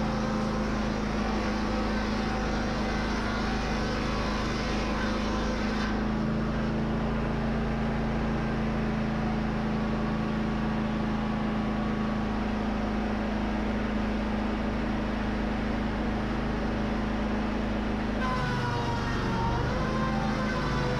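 Wood-Mizer twin-blade edger running steadily, its gas engine holding a constant note while cedar boards are edged. Near the end the engine's pitch wavers and dips.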